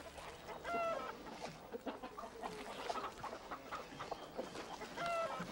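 A flock of domestic hens clucking and calling, with two short, louder calls, one about a second in and one near the end, over a run of small scattered clucks.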